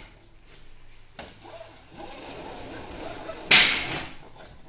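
Window roller shutter worked by its pull strap: a click, then the slats rattle for about a second and a half, ending in one loud, sharp smack about three and a half seconds in.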